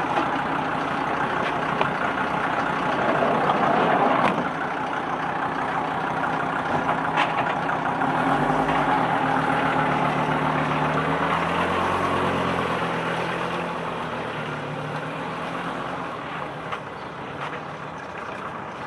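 A police van's engine running, then pulling away. Its note rises about eight seconds in, then fades as it drives off, over street noise. A short knock sounds about seven seconds in.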